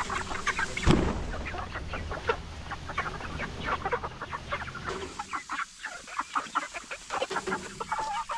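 A flock of hens clucking and chattering in many short, overlapping calls, with a single thump about a second in.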